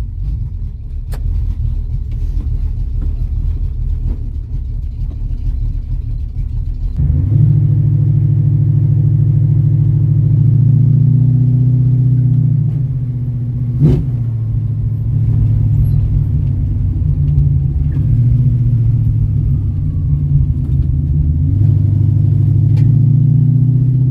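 Ford Mustang's engine heard from inside the cabin, a low rumble at first. About seven seconds in it turns louder as the car drives, the engine pitch shifting and then rising near the end as it accelerates. There is a single sharp knock about two-thirds of the way through.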